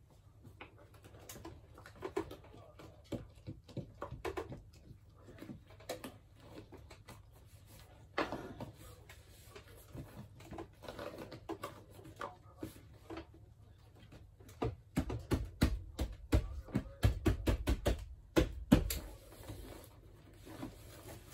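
A PVC wall panel being pressed and patted onto the wall by hand, the plastic giving irregular taps and clicks, with a run of heavier thumps about fifteen seconds in.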